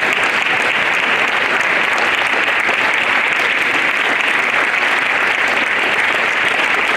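An audience of schoolchildren applauding, steady and sustained.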